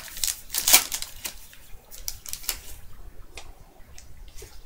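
2012 Topps Allen & Ginter baseball cards being flicked and slid one behind another in the hands: a run of short papery snaps and flicks, loudest about a second in, then sparser.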